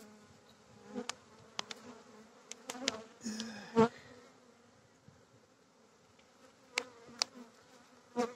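A Carniolan honeybee colony humming steadily in an open hive. Sharp wooden clicks and knocks come several times as the hive tool and frames are pushed and levered along the hive body, the loudest about four seconds in.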